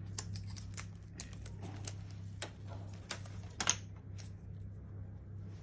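Irregular light clicks and crackles of gloved fingers handling a self-adhesive padel racket edge protector, peeling its backing and pressing the tape onto the racket's frame, over a low steady hum. One louder click comes about two thirds of the way through.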